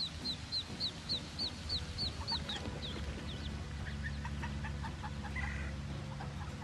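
Duckling peeping rapidly: a string of short, high, falling chirps about four a second, fading about three seconds in, followed by softer, lower chirps.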